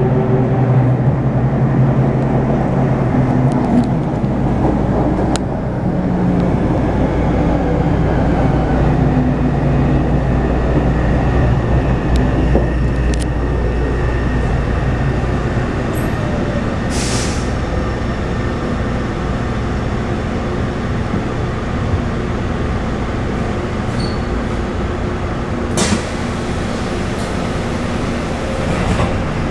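Taipei Metro C301 train with refitted propulsion running, its inverter and traction motors giving off several low tones that shift in pitch over the first few seconds, over steady wheel and running noise. The inverter sound is the one the uploader marks as abnormal. Brief sharp hisses and clicks come twice, later on.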